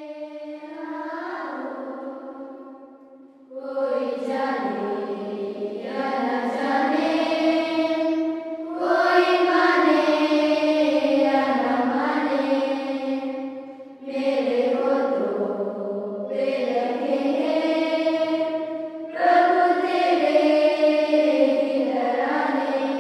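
A choir singing a slow chant in long held notes, phrase after phrase, with short breaks between phrases.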